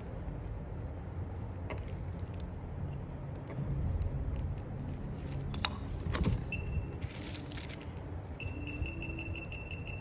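Handling noise with a few sharp clicks over a low rumble, then a short high-pitched electronic beep, and from about eight seconds in a rapid run of identical beeps, about four a second.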